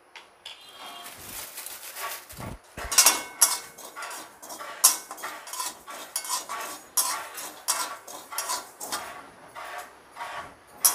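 Metal spatula scraping and stirring poppy seeds that are being lightly dry-roasted in a metal kadai. It is faint at first, then from about three seconds in comes a run of sharp scrapes, roughly two a second.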